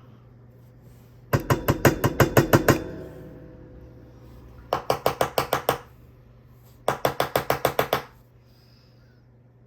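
Three bursts of rapid hard knocks, about seven a second, from a fidget toy being knocked repeatedly to work a stuck part loose. The part stays stuck.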